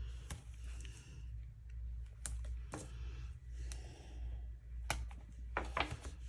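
Washi tape being laid and pressed onto planner paper by hand: scattered light clicks and taps, with a few louder strokes near the end, over a steady low hum.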